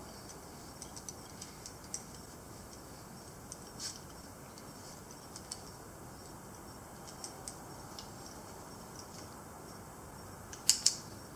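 Metal carabiners clinking and their gates clicking as a rope knot is worked and clipped by hand, in small scattered ticks with a sharp double click near the end.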